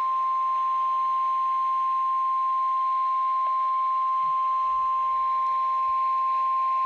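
NOAA Weather Radio warning alarm tone: a single steady 1050 Hz tone held without a break over a faint radio hiss, the signal that an emergency warning, here a tornado warning, is about to be broadcast.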